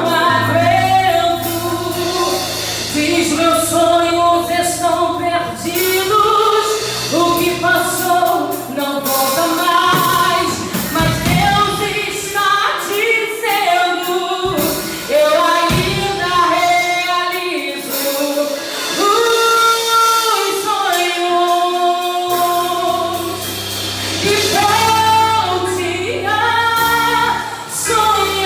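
Worship band music with a female lead voice and backing voices singing, over sustained bass and keyboard notes.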